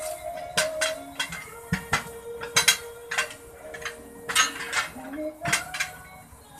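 Steel tyre irons striking and prying at a truck tyre on its steel lock-type rim: irregular sharp metal clanks, about a dozen, each with a short ring.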